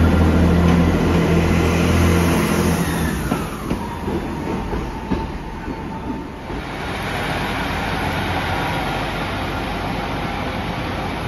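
Diesel multiple unit pulling out of the station: a loud low engine drone for the first few seconds, then a falling whine as it draws away and the sound fades into general station noise.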